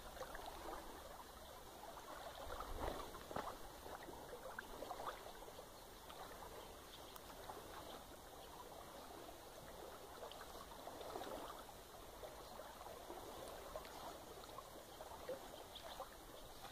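Faint running water of a creek, with scattered small ticks and a slightly louder moment about three seconds in.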